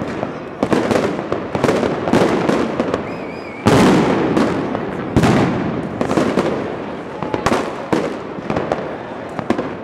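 Fireworks and firecrackers going off in a dense barrage of bangs and crackles, with two especially loud booms just before and just after the middle. A brief warbling whistle sounds just before the first of those booms.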